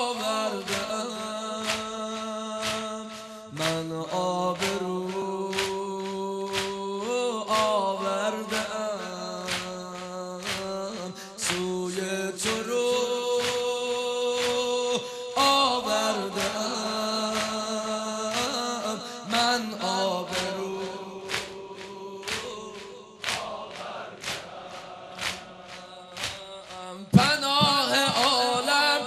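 A male reciter chanting a Persian Muharram noha (mourning lament) in long, drawn-out, wavering notes over a steady rhythm of sharp beats. The sound grows louder for the last two seconds.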